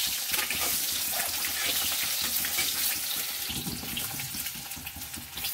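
Whole boiled eggs sizzling and crackling in hot oil in a steel kadai, a steady hiss.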